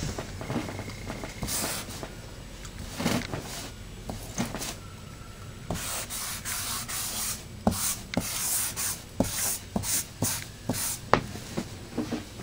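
Felt tip of an Oink Monster Mop squeeze marker rubbing across a whiteboard in a series of short strokes, busiest in the second half, with several sharp ticks among them.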